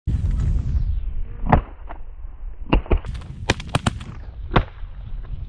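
Volley of shotgun shots at passing geese from several hunters, about half a dozen blasts, some in quick succession, over steady wind buffeting the microphone.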